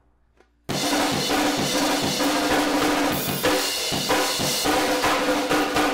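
Music driven by a drum kit, with kick, snare and cymbals under a few held pitched notes. It starts suddenly after a moment of silence, less than a second in.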